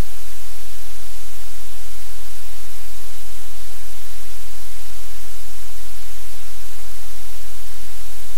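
Loud, steady static hiss with a low hum underneath, the noise of the livecam's audio feed; no distinct sound from the dog stands out.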